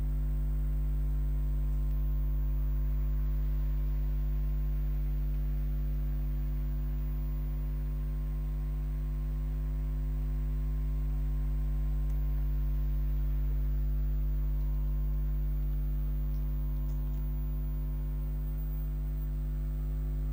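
Steady electrical mains hum, a low drone with overtones that does not change.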